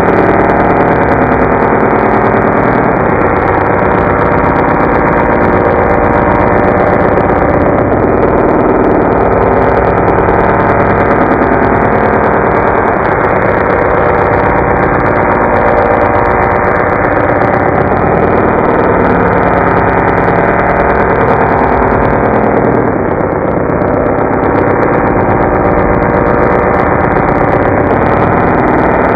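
A voice put through a robot vocoder effect and slowed to quarter speed: a continuous dull drone of many stacked tones whose pitch shifts slowly, with no words that can be made out.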